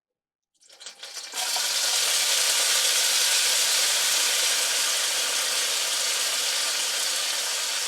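Chopped onion dropped into hot oil in a wok, sizzling loudly. The sizzle swells in about a second in and then holds steady, easing off slightly.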